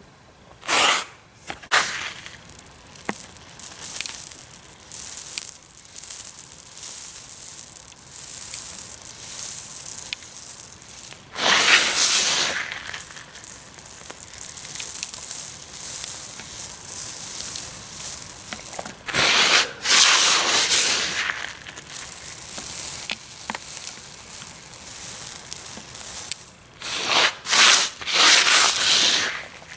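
Tiny aquatic gravel substrate crackling and rattling as it is handled, with several louder rushing spells of the small stones.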